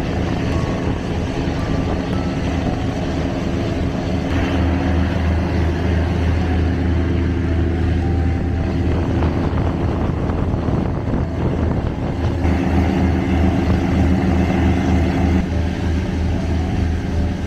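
Passenger vessel's engine running with a steady drone of several even low tones, over the rush of the wake along the hull. The sound shifts abruptly a few times, about four seconds in and again near twelve and fifteen seconds.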